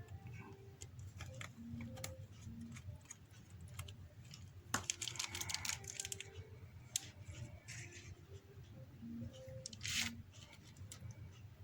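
Faint light clicks, taps and scraping of a small screwdriver on tiny screws and metal parts of a phone, with a louder scrape about five seconds in and another near the end.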